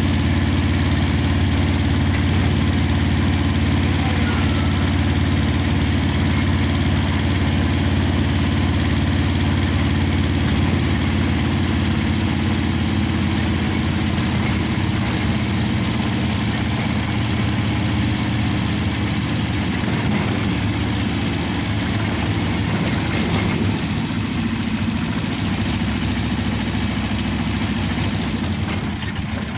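Steady engine hum and road noise of a motor vehicle driving at speed, heard from on board; it eases a little near the end.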